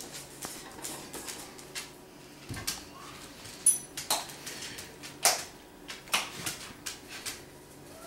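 Seasoning shaker shaken over a cooking pot: a string of short, uneven rattling shakes.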